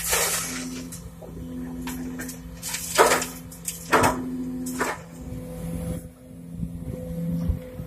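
Sumitomo SH210 hydraulic excavator's diesel engine and hydraulics running steadily, with bucket-loads of soil pouring into a steel dump-truck bed: a rush at the start and two loud rushes about three and four seconds in.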